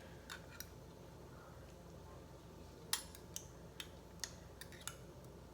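Scattered light clicks and clinks of kitchen utensils and dishes being handled, about eight in all, the loudest about three seconds in.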